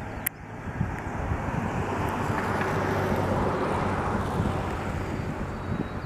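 A vehicle passing by: a rushing road noise with a low hum that swells to its loudest about halfway through, then slowly fades. A single sharp click comes just after the start.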